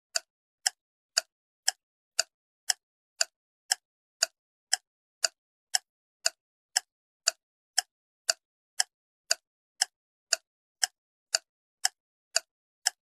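Steady ticking of a clock-style timer sound effect, about two sharp ticks a second, counting down the time to guess.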